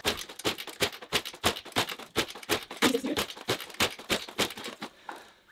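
Kawasaki KX100 two-stroke dirt bike being kick-started, the engine turning over without firing, a quick irregular run of clicks and rattles that dies away near the end. The owner puts the failure to start down to a flooded engine and a wet-fouled spark plug.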